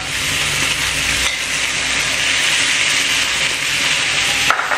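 Marinated chicken pieces sizzling on a hot grill stone as they are laid down with tongs; the steady hiss starts as the first pieces go on.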